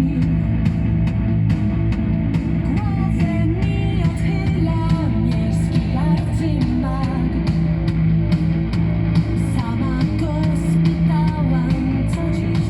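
Rock song playing through a hi-fi system: electric guitar and drums with a sung vocal line.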